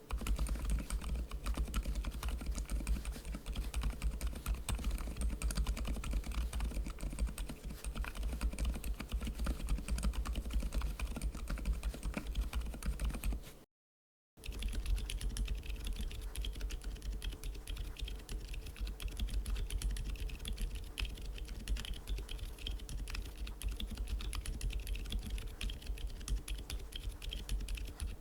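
Fast typing on mechanical keyboards fitted with Gazzew Boba U4 silent tactile switches: dense, muted key presses, in two runs with a brief silent break about 14 seconds in.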